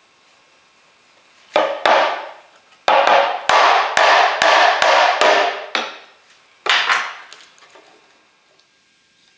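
Hammer blows on the handle of a wood chisel being driven down into the end of a short holly stem to split it, about a dozen sharp knocks: two, then a quick run of about eight at two to three a second, then a last pair.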